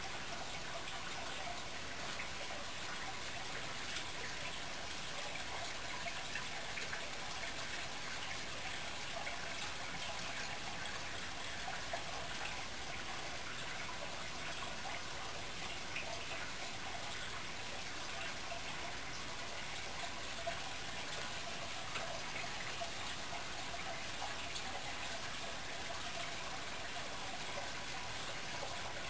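Steady bubbling and trickling of aquarium water from the tank's aeration and filter, with air bubbles rising through the water.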